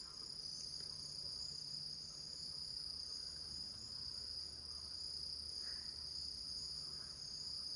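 Faint chorus of night insects trilling steadily at a high pitch.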